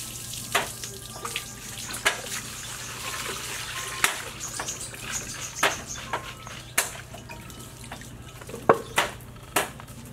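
Bean sprouts being rinsed: water poured from a bowl splashes over them in a woven bamboo basket and drips through, with scattered sharp splashes and knocks.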